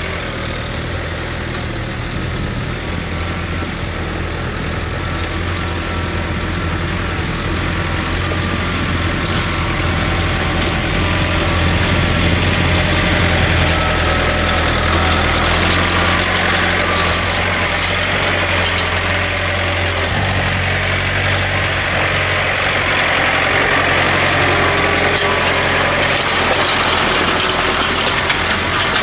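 John Deere 110 TLB's diesel engine running steadily under load while the tractor drags a three-point-hitch cultivator through the soil. It grows louder over the first dozen seconds as the tractor draws near, then holds.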